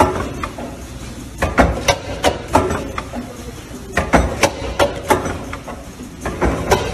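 Five-lane liquid sachet fill-and-seal packing machine running: clusters of sharp mechanical clacks about every two and a half seconds over a steady hum.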